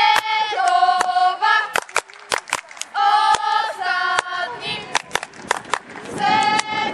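High voices singing a chant together in long held notes, with many sharp claps in between.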